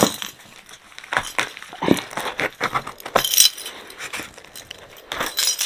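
A bunch of keys jangling and clinking in short, irregular clicks as one key is worked along the packing tape on a cardboard box to slit it open.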